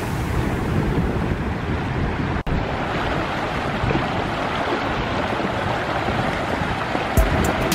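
Fast-flowing river water rushing steadily, with wind buffeting the microphone. The sound cuts out for an instant about two and a half seconds in.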